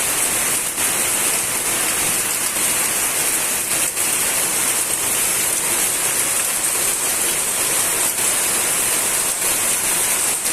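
Steady rainfall, an even hiss with no letup.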